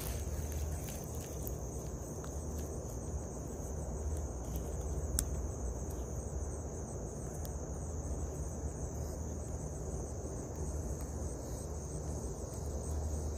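Crickets trilling steadily in a high unbroken tone, over a low steady rumble, with a few faint clicks.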